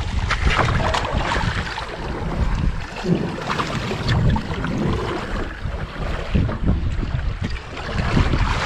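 Water splashing and sloshing beside a boat, with wind buffeting the microphone.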